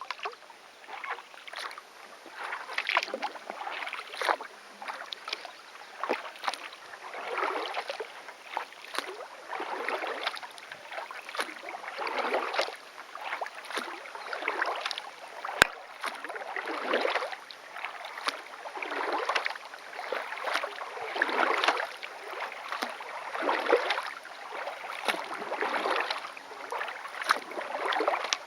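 Kayak paddle strokes in a steady rhythm: the blade dipping and pulling through the water, with a swell of splashing and dripping about every one to two seconds. A single sharp click about halfway through.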